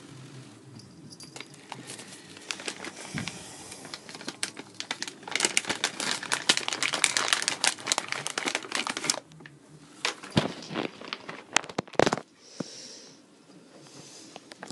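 Cat scratching and scrabbling on a corrugated cardboard scratcher: raspy, crinkly strokes that build to a dense bout of fast scratching for about four seconds midway, then a few separate sharp scrapes.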